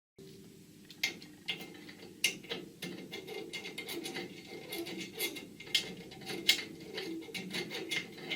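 Ratchet tool clicking in short, irregular runs while a self-tapping screw is driven into the sheet-steel top of a tool cabinet, mixed with light metallic knocks.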